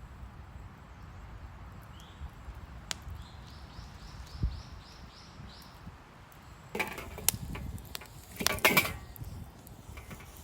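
Outdoor ambience with a bird calling a quick series of about eight short high notes, then two short bouts of clattering, rustling handling noise, the louder near the end.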